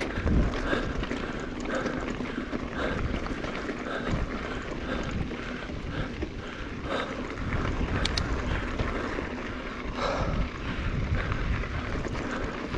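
Mountain bike climbing a dirt trail: tyres rolling and crunching over loose ground, with wind rushing over the chest-mounted microphone and a few short knocks from the bike over rocks.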